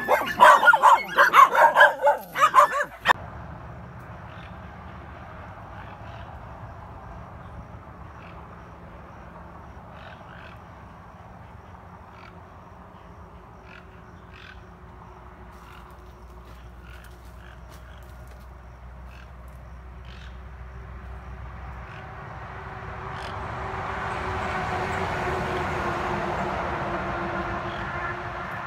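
Several dogs barking excitedly at a snake on the ground. About three seconds in the barking cuts off, leaving a quieter outdoor ambience with scattered faint chirps and clicks. After about twenty seconds a hazy drone swells up, then eases off near the end.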